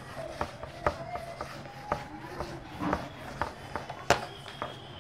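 A whiteboard duster being rubbed briskly across a whiteboard to erase it: scrubbing strokes with sharp knocks and clicks of the duster against the board, the loudest about four seconds in.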